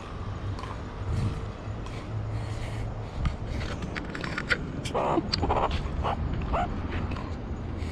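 Three or four short, rough animal calls in quick succession about five seconds in, over a steady low hum and scattered light clicks.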